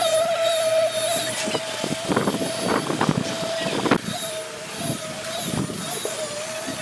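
Concrete pump running with a steady high whine, with a few short bursts of workers' voices around the middle.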